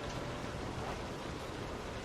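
Steady rain falling on a window pane: an even hiss with faint scattered drop taps.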